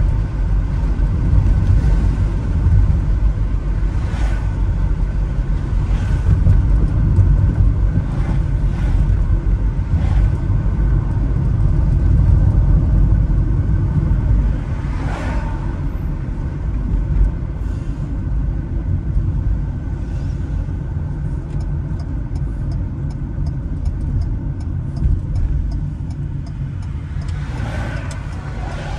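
Steady low road and engine rumble of a moving car, with faint ticking in the later part.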